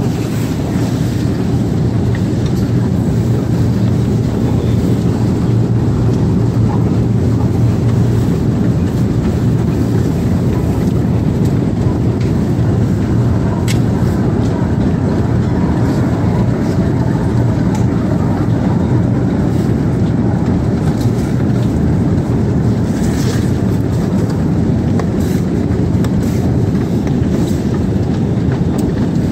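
Escalator running: a steady low mechanical hum and rumble, with occasional light clicks.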